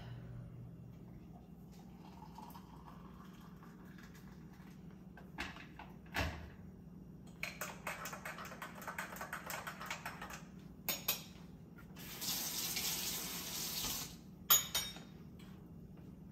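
Liquid poured into a mug in two spells, the louder and steadier one near the end, lasting about two seconds, while a green tea latte is made. Clinks of the mug and utensils come before and after, with one sharp clink just after the second pour.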